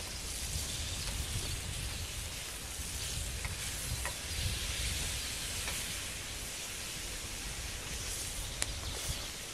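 Bacon sizzling as it fries in a pan over a small twig-stove fire, with a few light clicks near the middle and end.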